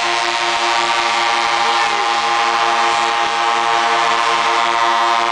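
Truck air horn sounded in one long, loud, unbroken blast, with a slight regular throb.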